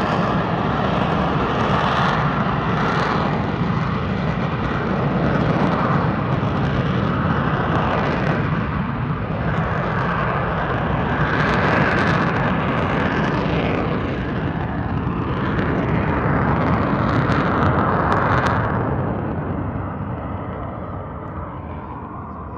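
Military jet fighter making a low pass, its engine roar swelling and easing several times, then fading away over the last few seconds.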